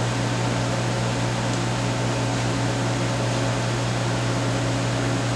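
Steady drone of laboratory machines running: a constant low hum with an even hiss over it.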